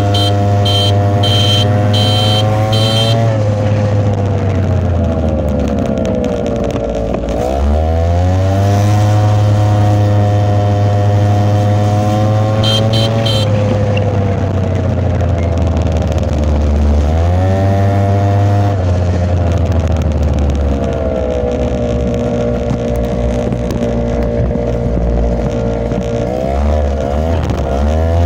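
Small motorbike engine running under way, its pitch climbing as it accelerates and dropping as it eases off, several times over. A high, pulsing beep sounds briefly near the start and again about halfway.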